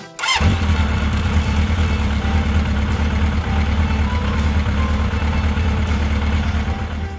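Motorcycle engine sound effect: the engine catches with a short sharp sound just after the start, then idles with a steady, deep, even rumble, and cuts off near the end.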